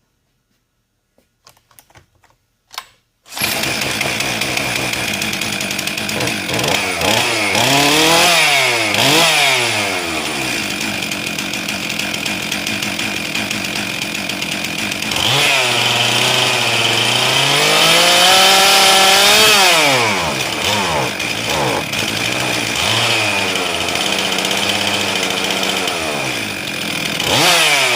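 Stihl MS 362 M-Tronic two-stroke chainsaw starting about three seconds in, then idling and being revved up and down several times, with one longer hold at high revs in the middle. It is running after a repair to its air valve housing, which had been letting in too much air.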